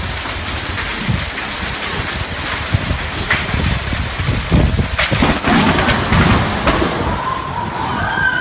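Violent storm: heavy rain pouring down with gusty low rumbling and scattered sharp cracks. Near the end a wavering siren comes in.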